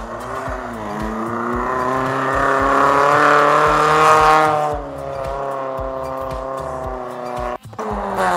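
A small hatchback rally car's engine revving hard under acceleration, its pitch climbing. About five seconds in it drops sharply as the throttle lifts, then it runs on steadily. Background music with a steady beat plays underneath.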